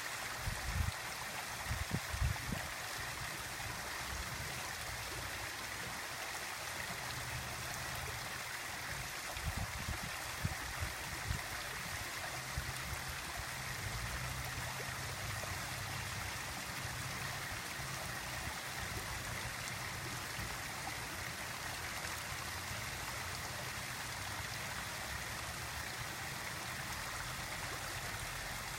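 Water fountain splashing and running steadily, with a few short low bumps about a second in and again around ten seconds in.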